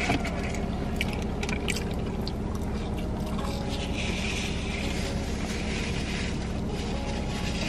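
Close-up eating sounds: chewing and crinkles of a burger's paper wrapper in the first couple of seconds, then a drink sipped through a straw about four seconds in, over a steady low hum of the car cabin.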